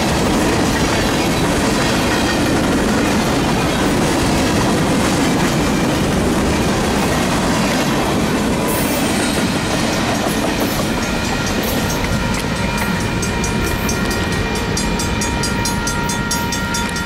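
Freight train of boxcars and tank cars rolling past, a steady noise of steel wheels on rail. About halfway through it grows less heavy, and a grade-crossing bell rings with a fast, even beat.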